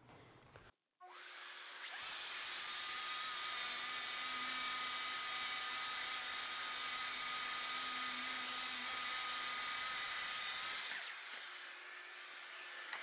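Festool plunge track saw and its connected dust extractor spinning up about a second in, then running steadily as the saw rips a long cut through a plywood sheet along its guide rail. Both wind down near the end of the cut.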